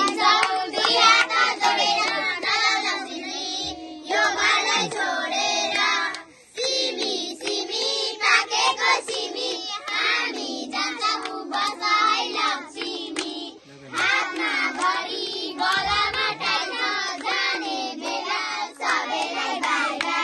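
A group of young girls singing a Nepali Tihar bhailo song together while clapping their hands, the singing breaking off briefly a couple of times between phrases.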